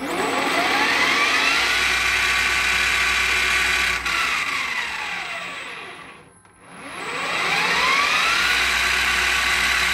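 Mac Afric BV20BL bench lathe, its motor rewound to three-phase and driven from an inverter, spinning its heavy chuck up with a rising whine in under two seconds and running steadily. About four seconds in it is dynamically braked, the whine falling to a near stop. It is then driven straight back up in reverse, the whine rising again to full speed.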